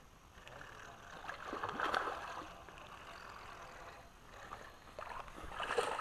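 A hooked smallmouth bass splashing at the water's surface as it is fought in to the bank. The splashing is loudest near the end.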